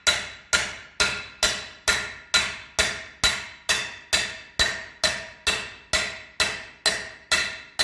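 Hammer striking a steel pipe at a steady pace of about two blows a second, each blow ringing like metal, driving a new carrier (hanger) bearing down onto a two-piece drive shaft.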